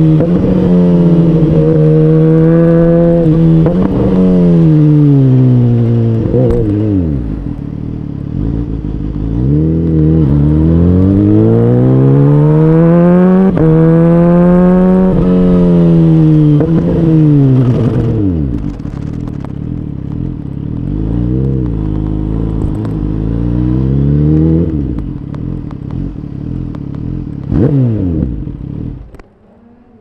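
Kawasaki Ninja H2's supercharged inline-four engine, loud from on board, revving up and easing off several times as the bike is ridden. There are a few short sharp revs in the second half, and the engine sound drops away just before the end as the bike stops.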